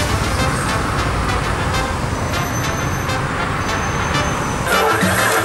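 Steady noise of city street traffic, buses and cars with their engines running. Music comes in near the end.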